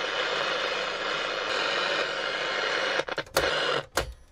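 VEF 202 transistor radio giving a steady hiss of static on the shortwave band, with no station coming through. About three seconds in the hiss breaks off, with a couple of sharp clicks as the radio's controls are switched.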